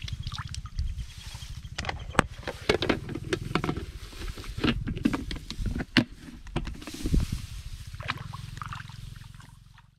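Sharp clicks and knocks of a plastic box being shut and handled, then rustling and footsteps through rice plants, over a steady low throb. The sound fades out at the end.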